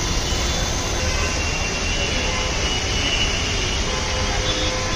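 Heavy monsoon rain falling steadily on pavement and umbrellas, an even hiss, with faint high tones in the middle.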